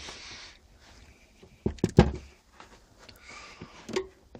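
Sharp clicks and a loud knock about two seconds in, with rustling, from hand and socket-wrench work on the car seat's mounting bolts.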